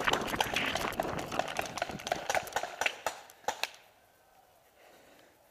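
Hurried footsteps crunching through dry leaf litter, with gear rustling, and a few sharp cracks about three and a half seconds in. The sounds die away about four seconds in.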